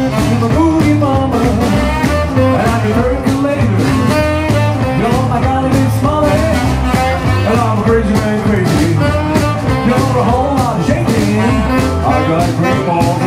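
Rock-and-roll band playing a boogie number live: electric guitar, saxophone, piano, upright bass and drums, with a steady driving beat.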